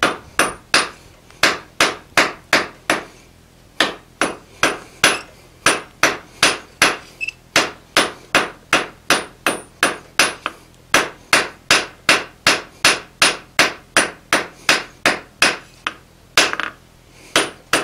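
Hand hammer striking red-hot steel on the face of an anvil, a steady run of blows about three a second, each with a short ring, pausing briefly twice. The blows are drawing out and smoothing the tang of a drawknife.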